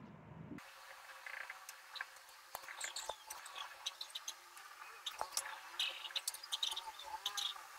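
Felt-tip marker squeaking and scratching on a whiteboard in many short, quick strokes as a diagram and labels are drawn.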